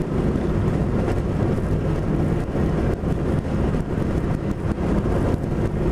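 Steady road and engine noise of a car driving on a highway, heard inside the cabin.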